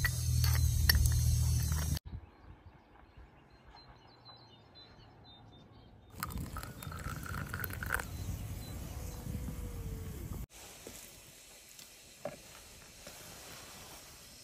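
A steady low hum cuts off about two seconds in. After a few quiet seconds, hot water is poured into a small porcelain jug to steep ground saffron, running for about four seconds before it stops.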